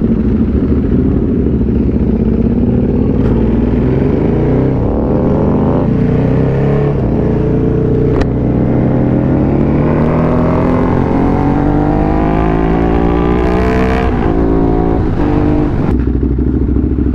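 Motorcycle engine accelerating, its pitch climbing steadily and stepping at gear changes, mixed with wind rush.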